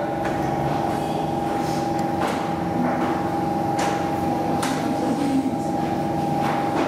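A steady mechanical hum with two fixed tones, with a few light clicks and knocks scattered through it.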